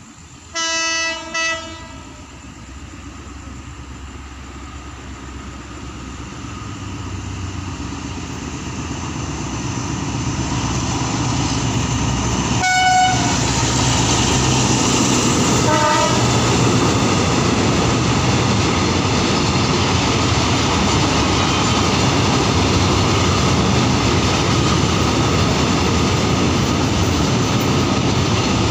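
Container freight train hauled by an Alsthom ALD diesel locomotive, sounding two horn blasts about a second in while still distant. It then comes closer, growing steadily louder, and gives two short toots at about 13 and 16 seconds. After that the wagons rumble and clack past at a steady loud level.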